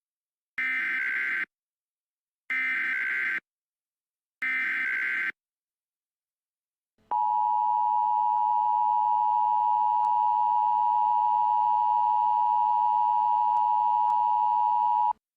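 Emergency Alert System tones announcing a tornado warning. Three short, identical bursts of the warbling digital SAME header data come about two seconds apart. Then the steady two-tone EAS attention signal holds for about eight seconds and cuts off abruptly.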